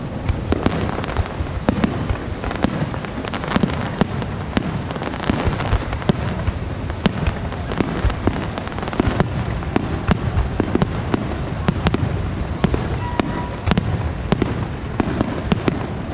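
Aerial firework shells bursting in a rapid volley: many sharp cracks and bangs, several a second, over a continuous low rumble.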